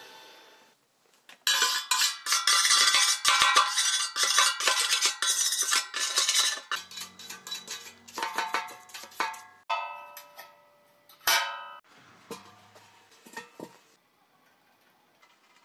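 A wooden-handled hammer rapidly tapping welded sheet steel, each strike ringing sharply. About five seconds of fast, dense tapping gives way to slower, separate blows with longer ringing, then a few faint taps.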